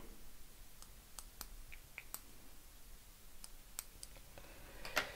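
Small scissors trimming the fuzzy ends of CDC feather fibres: a scatter of faint, sharp snipping clicks at irregular intervals, the loudest near the end.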